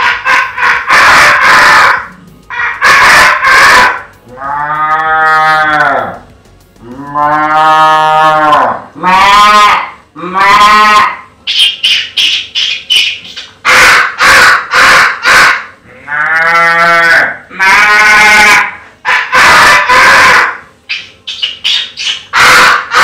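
A man's vocal mimicry of a village dawn, done through cupped hands: several long, drawn-out imitated cow moos, with quick imitated bird chirps and other short animal calls between them.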